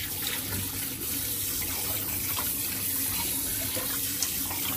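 Kitchen tap running steadily into a sink, water being drawn to soak the fish.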